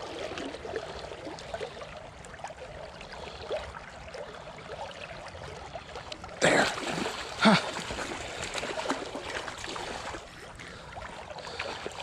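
Shallow creek water running steadily over a riffle, with two brief louder noises about six and a half and seven and a half seconds in.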